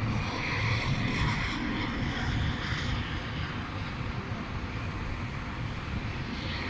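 Blizzard wind gusting and buffeting the microphone, a steady rushing noise with an uneven low rumble.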